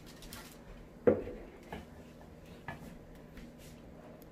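Kitchenware being handled: one sharp clack about a second in, then a few light clicks.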